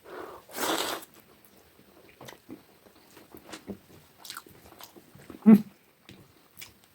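Close-miked mouth sounds of eating: a noisy bite near the start, then soft wet chewing with many small clicks, and a short hummed 'mm' about five and a half seconds in.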